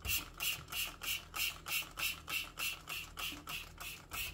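Trigger spray bottle pumped rapidly, squirting household degreaser over the parts of a remote control: an even run of short hissing squirts, about three a second.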